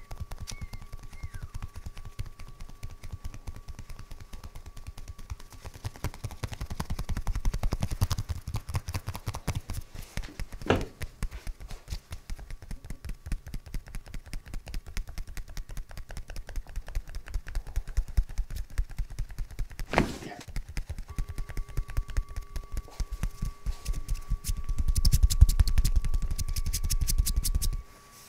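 Hands rapidly tapping and chopping on a bare back in percussive massage (tapotement), a fast patter of skin slaps. It grows louder for a few seconds near the end, then stops suddenly.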